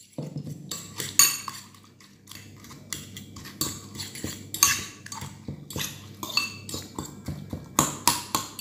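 Fork beating raw eggs with chopped vegetables in a bowl: a wet swishing broken by irregular clinks of the fork against the bowl's side, about one or two a second.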